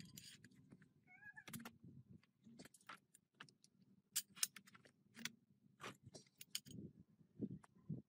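Faint scattered clicks and taps, with one short wavering high-pitched cry about a second in.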